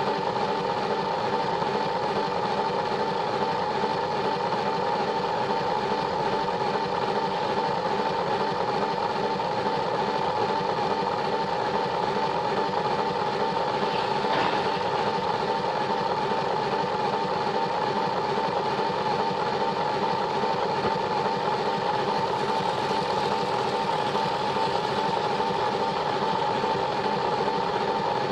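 Battery-powered Plarail toy train motor whirring steadily as the train runs along plastic track, with one brief click about halfway through.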